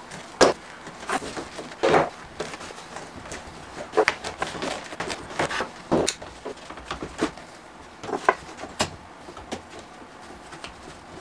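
Spring clamps and a hand clamp clacking and snapping on as steamed wood strips and a thin aluminium strip are bent around a plywood form: irregular sharp clicks and knocks, the loudest about half a second, two, four and six seconds in.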